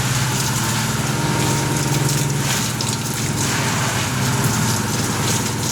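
A machine running steadily: a low hum with a fast flutter through it and a rushing hiss on top.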